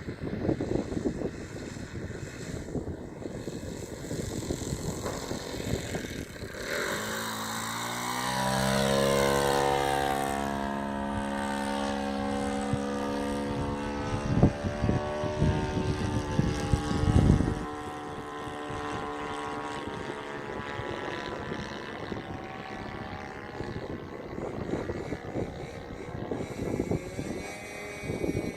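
Four-stroke glow engine of a large RC model airplane (1.20 cu in, driving a propeller) flying past. Its drone swells about a quarter of the way in, drops in pitch as the plane passes, then fades away. Wind buffets the microphone at the start and again in gusts mid-way.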